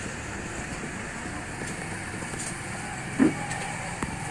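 Steady background traffic noise, with one loud dull thud on the wooden chopping block about three seconds in and a light click near the end.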